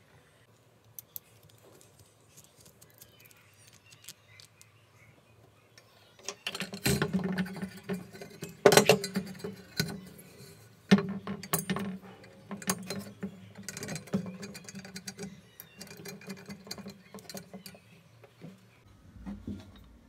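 Metal parts of a drill stand being handled and fitted together: a few faint clicks at first, then from about seven seconds in a run of sharp clinks, knocks and rattles.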